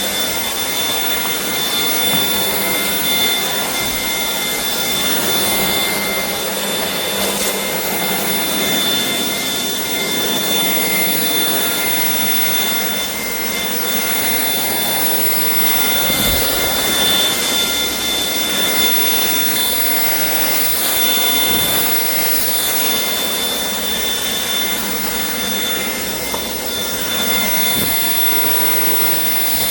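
Shark cordless stick vacuum running steadily: a steady high whine over a rushing of air.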